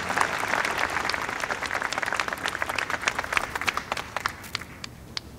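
Crowd applauding, the clapping thinning out and fading over about four seconds, with a few last scattered claps near the end.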